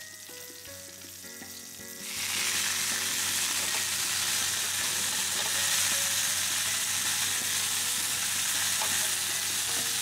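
Chicken thigh frying in olive oil in a frying pan: a loud, steady sizzle that starts suddenly about two seconds in.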